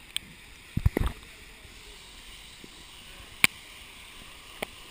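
Water sloshing and knocking against a waterproof action-camera housing at the surface of a pool. There is a cluster of heavy low thumps about a second in and a few sharp clicks later, over a steady rush of falling water.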